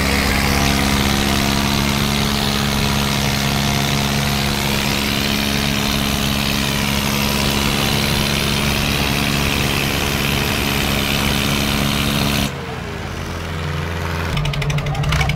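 Swaraj 855 tractor's diesel engine running flat out under heavy load in a tug-of-war pull, a steady labouring note. About twelve seconds in the sound drops suddenly, then a new, pulsing engine note climbs back up near the end.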